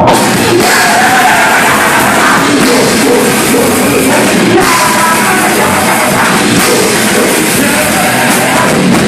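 Grindcore band playing live: loud distorted electric guitar and drums in one dense, unbroken wall of sound.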